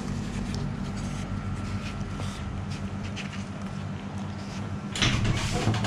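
Steady low hum of room machinery with faint scattered clicks and rustles. About five seconds in, a louder rustling begins.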